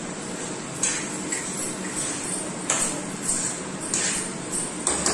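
Metal spoon stirring diced pumpkin in a frying pan, clinking and scraping against the pan several times over a steady hiss.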